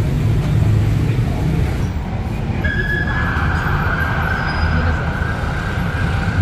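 Street traffic rumbling steadily, with a flat high-pitched whine that starts suddenly about two and a half seconds in and holds for several seconds.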